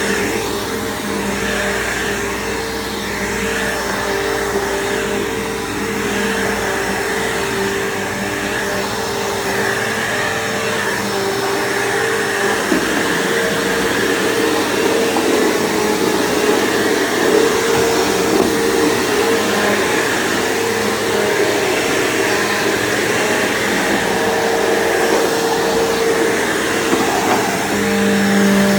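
Bissell PowerForce bagged vacuum cleaner running steadily, a motor hum over rushing air. Its sound changes and grows slightly louder about halfway through.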